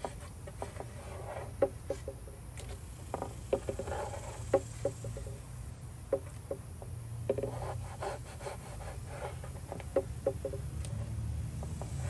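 A knife sawing through a stingray wing on a plastic cutting board: irregular clusters of short clicking and scraping strokes as the blade crunches through the wing's cartilage and knocks on the board, over a low steady hum.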